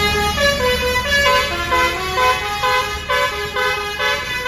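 A tourist bus's basuri telolet horn playing a quick tune of short notes that step up and down in pitch.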